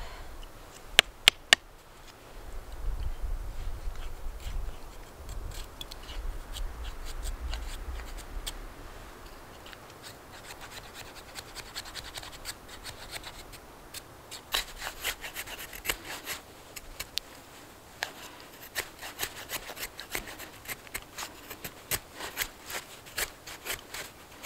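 A knife blade shaving thin curls off a split stick of kindling to make a feather stick: repeated short scraping strokes, steadiest from about halfway through. A few sharp clicks come just after the start.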